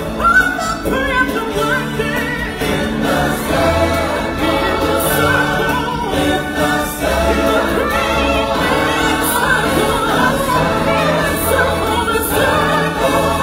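Stage-show music: a choir singing with a band accompaniment, loud and continuous.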